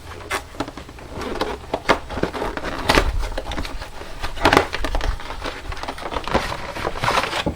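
Rustling, crinkling and crackling, with scattered light knocks, from a pleated paper engine air filter and its plastic air box being handled during a filter swap.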